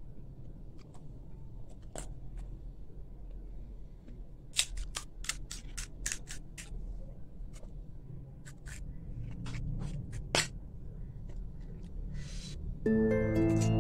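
Crisp, hollow puri shells cracking as fingers break them open, a quick run of sharp cracks about four to seven seconds in and another near ten seconds. Gentle plucked harp music comes in near the end and is louder than the cracking.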